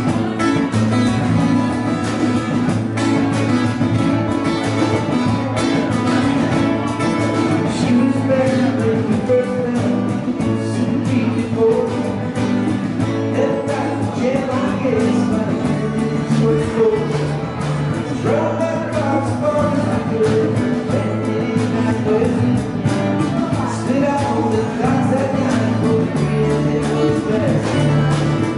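Live acoustic band playing: strummed acoustic guitars over electric bass notes, with a man singing into a microphone from about a third of the way in.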